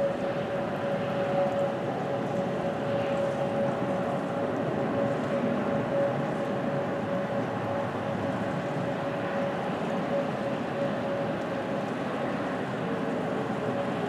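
Outdoor warning sirens, including Whelen electronic sirens, sounding the steady-tone Alert signal of a scheduled test. One pitch is held without wavering, and a second, slightly lower siren tone comes in near the end.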